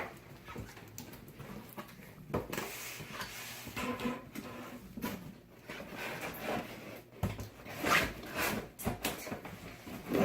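A toy's cardboard box being opened and handled: irregular rustling and scraping with a few short knocks.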